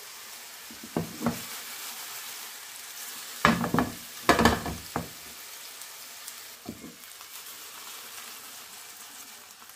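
Smashed beef burger patties sizzling steadily in oil in a non-stick frying pan over a low gas flame. A few brief, louder knocks and scrapes come about a second in and again around the middle, as the pan is shifted on the hob grate.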